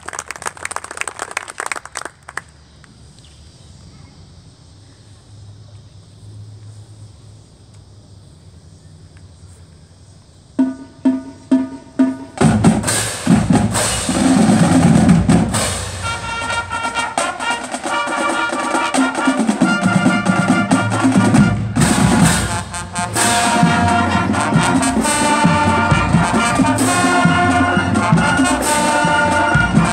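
Marching band with drums and brass starting a piece: a few short, sharp hits about ten seconds in, then the full band playing loudly from about twelve seconds on, after a stretch of quiet background.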